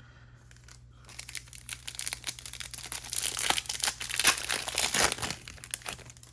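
Trading-card pack wrapper being torn open and crinkled, a dense crackle that builds about a second in, is loudest in the middle and dies away near the end.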